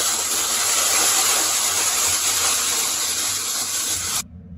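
Wood pellets pouring in a steady stream into a steel boiler hopper, a dense rushing rattle that cuts off suddenly about four seconds in.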